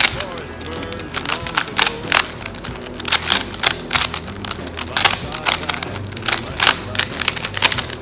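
A 3x3 Rubik's cube turned rapidly by hand: a fast, irregular run of sharp plastic clicks and clacks as the layers snap round. A rock song with a singing voice plays underneath.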